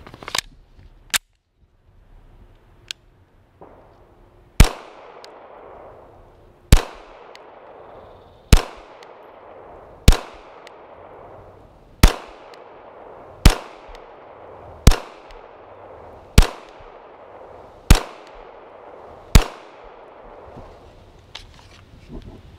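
A Canik TP9 DA 9mm pistol is loaded with a couple of small clicks, then fired ten times in slow single shots, about one every one and a half to two seconds. Each shot is followed by a short echo.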